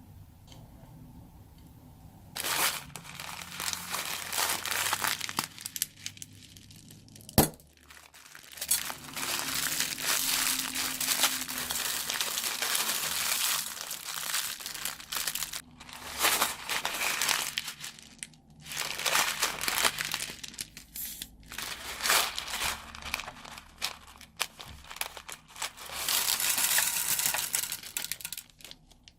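Plastic bag crinkling in long spells as it is squeezed and kneaded to mix glue and shaving foam into slime inside it, with short pauses and one sharp click about seven seconds in.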